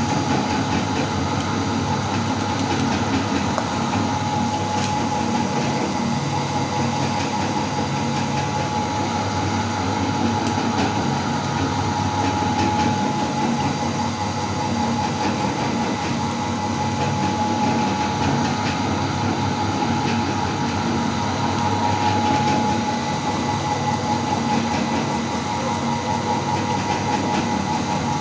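Meat grinder running steadily, a continuous mechanical hum with a steady whine over a low rumble.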